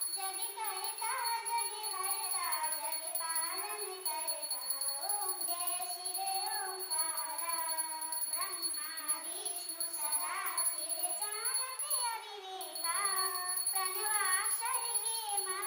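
A high voice singing a devotional aarti song, the melody sliding and wavering between held notes.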